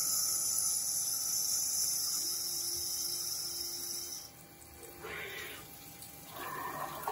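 Jones & Shipman cylindrical grinder running its wheel-dress cycle, with coolant pouring over the grinding wheel. A strong high hiss cuts off about four seconds in, over a steady machine hum, and a few short splashy bursts come near the end.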